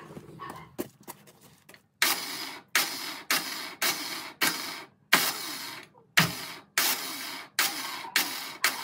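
Repeated harsh rasping strokes, starting about two seconds in, roughly one every half to three quarters of a second and coming faster near the end.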